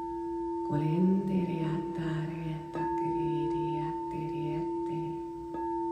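Singing bowl ringing with a steady two-note tone, struck again about three seconds in and near the end. A low wordless voice tones along beneath it.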